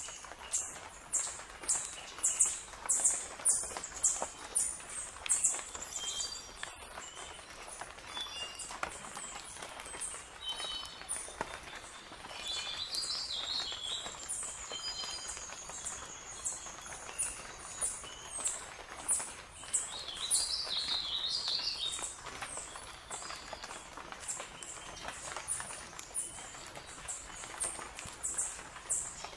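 Forest birds calling: short high chirps repeating about once or twice a second, a long thin high whistle in the middle, and two bursts of rapid twittering.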